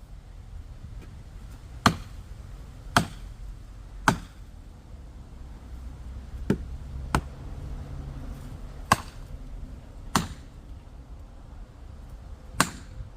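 Eight sharp knocks of a tool striking wood, spaced irregularly a second or two apart, over a low steady rumble.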